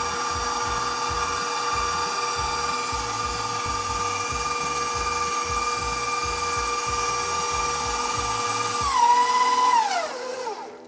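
KitchenAid stand mixer motor running at speed 6 and driving its metal meat grinder attachment, a steady high whine with a rough grinding rumble underneath, as a chicken and bread mixture is pushed through the medium plate for a second pass. Near the end the whine slides down in pitch and fades as the motor winds down.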